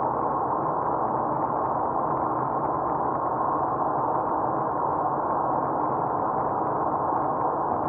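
Steady road noise and engine hum inside a car's cabin as it cruises along at a constant speed.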